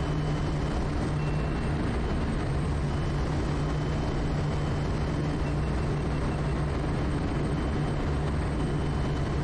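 Quest Kodiak's PT6A turboprop engine and propeller droning steadily on final approach, with an even low hum and no change in power.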